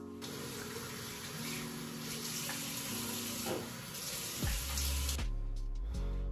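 Bathroom sink tap running, with water splashing over hands held under the stream; the water stops about five seconds in.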